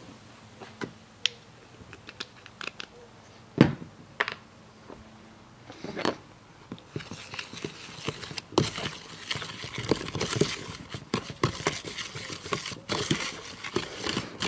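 Metal fork stirring and scraping a baking soda and lemon juice paste against a plastic tub. A few scattered clicks and knocks come first, then dense scraping and clicking from about seven seconds in.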